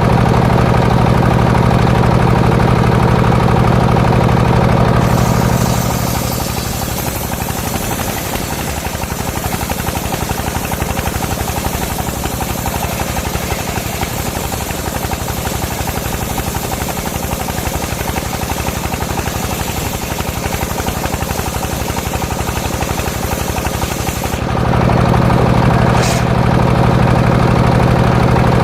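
Engine driving a homemade circular sawmill: it runs steadily, then about five seconds in the blade goes into a coconut trunk and a high, even cutting hiss takes over for some twenty seconds while the engine tone drops under the load. Near the end the cut finishes and the engine runs free again, with a brief high whistle from the spinning blade.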